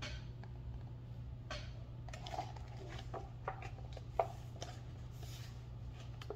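Book pages being turned and handled: a series of short paper rustles and light taps, over a steady low hum.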